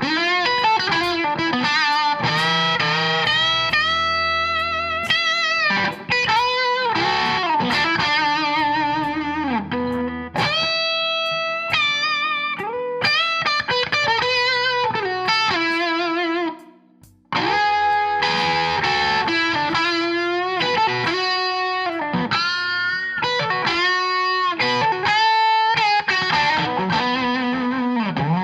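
Electric guitar on a Suhr SSV+ bridge pickup playing a blues solo: single-note lines with string bends and vibrato, with a short pause about seventeen seconds in.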